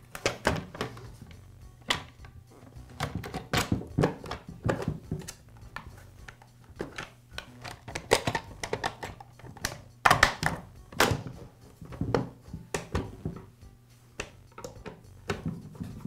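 Plastic top cover of a Husqvarna 455 Rancher chainsaw being worked into place on the saw body: irregular clicks, taps and knocks of hard plastic against plastic, the loudest a quick cluster of knocks about ten seconds in.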